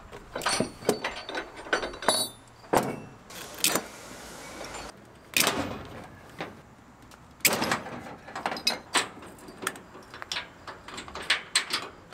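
Ratchet tie-down straps being released from a truck's wheels: a run of sharp metallic clicks and clacks from the steel ratchet buckles and hooks, with the nylon webbing pulled through them in a few brief sweeps.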